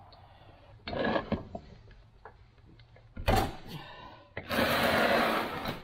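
Heavy cast-iron Record No. 6 bench vise handled on a wooden workbench: a scrape about a second in, a loud knock a little after three seconds as the vise comes down upright, then a loud scraping slide lasting just over a second.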